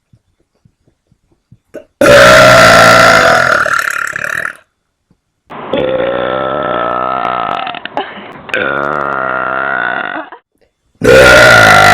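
A woman's long, very loud burps, four in a row. The first comes about two seconds in and is the loudest. Two wavering, lower-level ones follow in the middle, and another loud one starts near the end.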